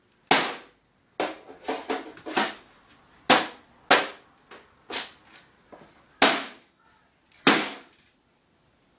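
Hammer blows and stamping on a steel desktop computer case: about a dozen loud metallic bangs at irregular intervals, each with a short ringing tail, with a quick flurry of smaller hits about two seconds in.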